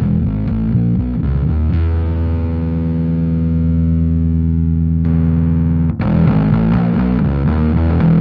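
Bass played through a Fender Blender fuzz pedal: a short run of fuzzed notes, then one held note sustaining for about four seconds. While the pedal's knobs are adjusted, the held note's upper tones fade and cut off abruptly, and then the fuzzed playing starts again about six seconds in.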